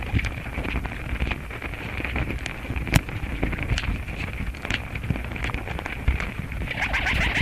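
Irregular crackling clicks over a low rumble and a steady high hiss, with a louder rustling burst near the end.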